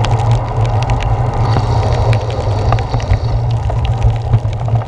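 Wind rumble on a handlebar-mounted GoPro Hero 4 while riding a bicycle through heavy rain, with raindrops ticking and spattering on the camera housing and wet-road hiss underneath.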